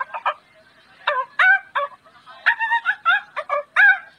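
A man imitating poultry with his voice: gobbling calls, short and quick with upward-bending pitch, in a brief group about a second in and a longer run after a pause.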